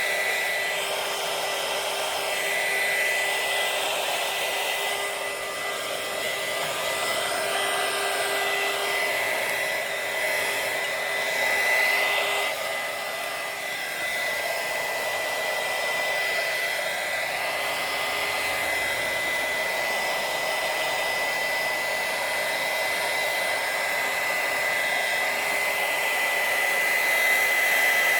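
Electric heat gun blowing steadily, with a steady high whine over its airflow hiss, curing wrinkle-finish paint.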